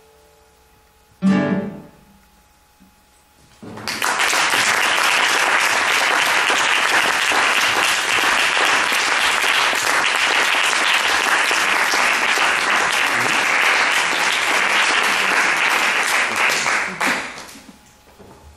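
A classical guitar strikes a final chord about a second in, which rings and dies away. After a short pause an audience applauds for about thirteen seconds, fading out near the end.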